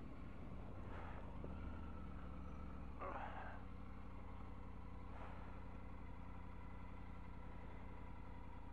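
Triumph Tiger 900 three-cylinder motorcycle engine running steadily at an even pitch, with a few short rushes of noise about one, three and five seconds in.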